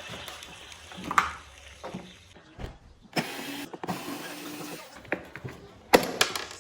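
Knocks and clicks of handling a vacuum cleaner being taken apart, with a small electric motor whirring for about two seconds in the middle and a sharp knock near the end.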